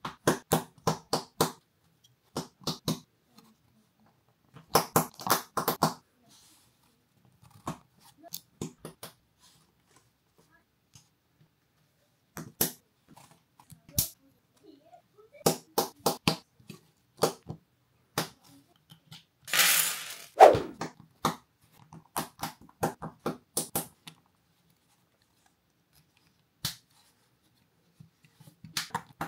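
LEGO bricks clicking and rattling as pieces are handled and snapped together, in irregular clusters of sharp clicks with short pauses. A brief rustling burst comes about two-thirds of the way through.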